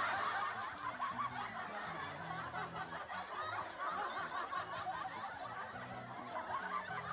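Many people laughing at once, like a canned laugh track, starting suddenly just before and running on over low notes of background music.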